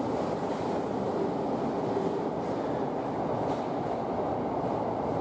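Subway train running through an underground station at speed without stopping: a steady rumble of wheels on rail, echoing off the station walls, with a couple of faint clicks.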